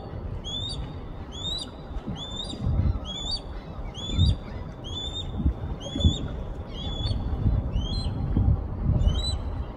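Osprey calling: a steady series of short, rising whistled notes, about three every two seconds, over a low, gusty rumble.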